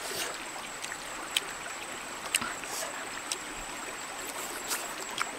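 Steady rushing of river water, with a thin high tone held underneath and about five short sharp clicks scattered through it.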